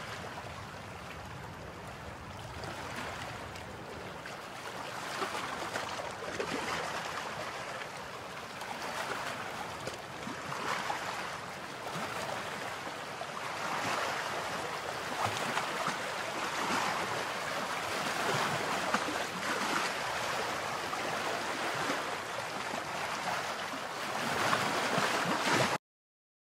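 Sea surf on a sandy beach: a steady rushing wash that swells every few seconds as waves break and run up the sand, cutting off abruptly near the end.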